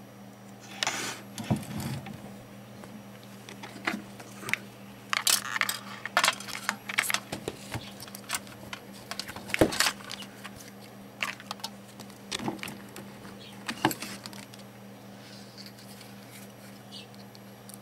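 Irregular clicks and light clatter of small tools and parts being handled on a workbench during soldering work, a dozen or so sharp knocks scattered through, with the busiest stretch about five to eight seconds in, over a faint steady hum.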